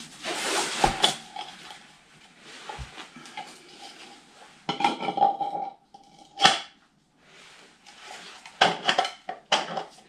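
Hand-handling noises from fitting a 3D-printed plastic center cap into an alloy wheel's center bore: plastic scraping and rubbing against the metal, with a few sharp clicks and knocks as the wheel is moved and stood upright.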